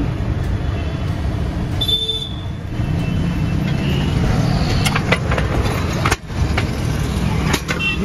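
Steady low rumble of motor traffic and engines, with a few sharp clicks and knocks and a short high beep about two seconds in.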